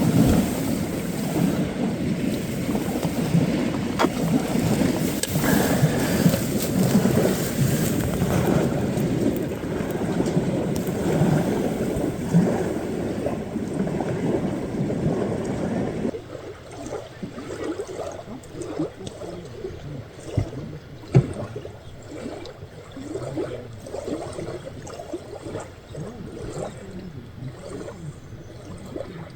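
Water splashing and lapping with wind noise on the microphone. The sound drops sharply and gets quieter about sixteen seconds in.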